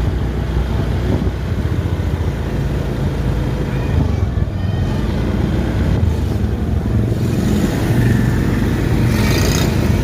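A motor vehicle's engine running steadily with road traffic noise, with a short burst of high-pitched hiss near the end.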